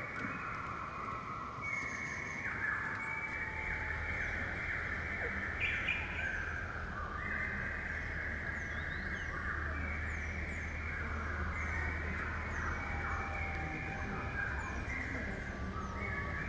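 Forest birds chirping and calling together, with many short, quick high chirps over a dense, overlapping chorus. A steady low rumble sits underneath from a few seconds in until near the end.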